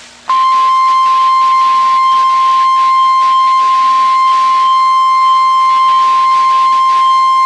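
NOAA Weather Radio warning alarm tone: one loud, steady, unbroken tone at about 1050 Hz, starting about a third of a second in, over faint radio hiss. It is the alert signal that a weather warning broadcast is about to follow.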